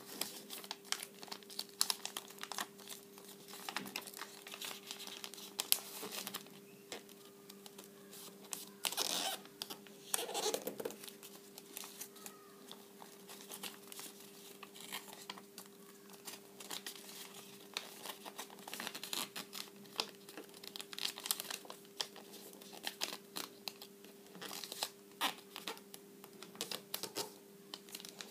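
Glossy origami paper rustling and crinkling as hands fold it and press creases, with dense irregular crackles and a busier stretch of handling about ten seconds in. A steady low hum runs underneath.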